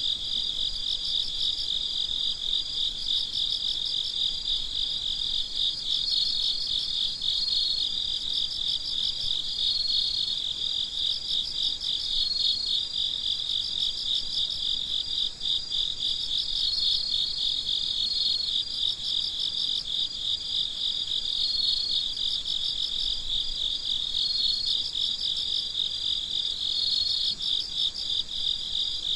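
A chorus of crickets chirping without pause: a dense, fast-pulsing trill, with a higher trill above it broken by short held notes every second or two.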